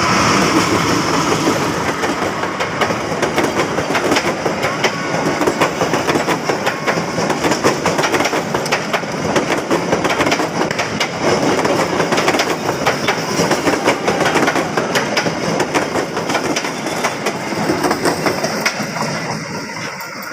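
Train passing close by, its wheels clattering rapidly over the rail joints in a continuous clickety-clack; the sound dies away near the end.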